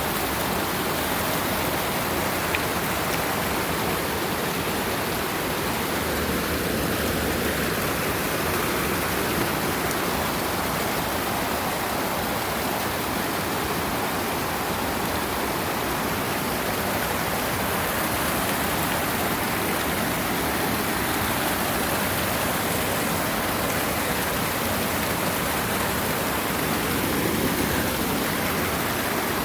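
Steady rush of a flowing creek running over stones.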